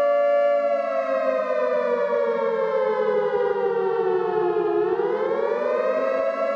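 Civil defense siren sounding, several tones together: the pitch slides slowly down for about four seconds, then climbs back up near the end.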